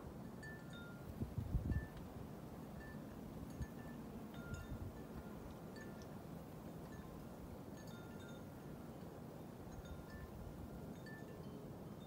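Wind chimes tinkling irregularly at several pitches over a steady low rush of wind. A few low thumps come between one and two seconds in, the loudest moment.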